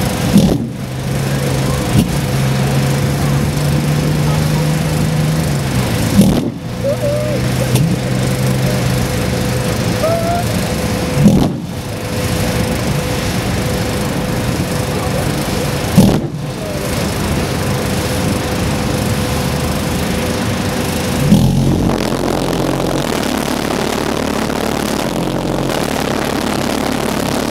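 Pulsejet engine on a racing snowmobile being started: a loud, steady roar broken by a sharp bang about every five seconds, five in all. About 21 seconds in, the roar shifts to a deeper, lower rumble.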